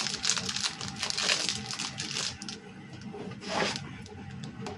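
Rubbing and scraping noises from kitchen things being handled, a quick run of short scrapes that thins out about halfway through, with one louder scrape near the end.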